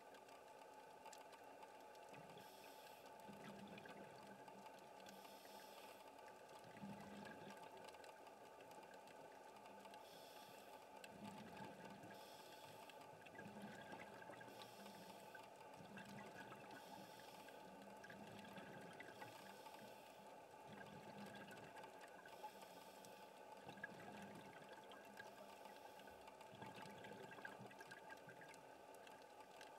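Faint scuba breathing heard through an underwater camera housing: a hiss of inhalation through the regulator alternating with a low bubbling of exhaled air, repeating every couple of seconds over a steady faint hum.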